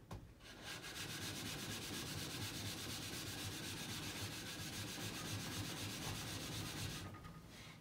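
Ceramic water stone scrubbed back and forth on a diamond lapping stone, a steady gritty rubbing that starts about a second in and stops near the end. It is truing the stone, grinding off a slight hollow worn into its face.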